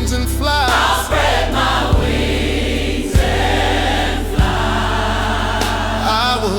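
Gospel music with a choir singing sustained wordless vocals over a steady beat and a moving bass line.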